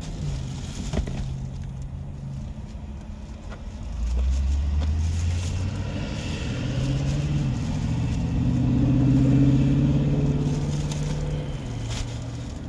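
Motor vehicles running on the street: a low engine hum that swells about four seconds in and peaks around nine seconds, with the rustle of plastic bags.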